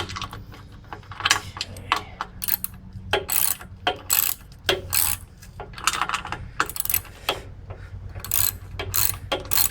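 Hand ratchet wrench clicking in short runs on its back-swings while loosening a half-inch hydraulic hose fitting on a backhoe; the fitting is not very tight and turns readily.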